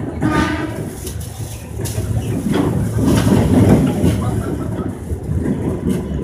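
Korail Line 1 resistor-control electric train running, a steady low rumble that swells midway, with a brief high pitched tone near the start.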